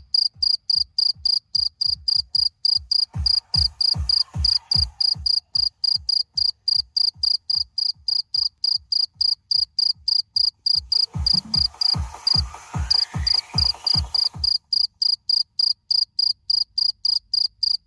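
A cricket chirping steadily in a fast, even rhythm, about four to five high chirps a second. Twice, a short run of low thumps sounds underneath.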